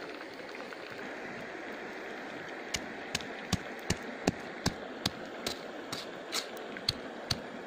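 Sharp, rhythmic knocks, about two or three a second, from food being worked by hand with a hard tool on the ground. They start about a third of the way in, over a steady background hiss.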